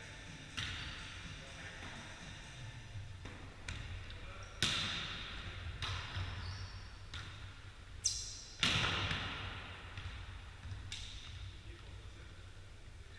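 A volleyball being struck again and again during a rally, each hit a sharp smack that rings on in the hall's echo. The two loudest hits come about four and a half and eight and a half seconds in.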